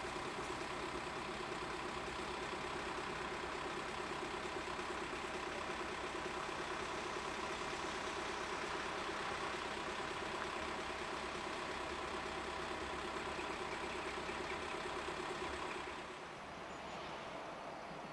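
Engine of a yellow railway maintenance vehicle idling steadily, with a steady whine over it. About two seconds before the end it gives way to a quieter rush of wind.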